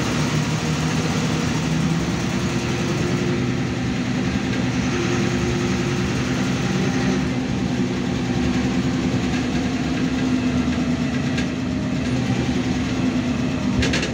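Inside a moving MAN Lion's Classic SL 283 city bus: its diesel engine running steadily under the cabin noise of tyres and road, with a couple of faint clicks near the end.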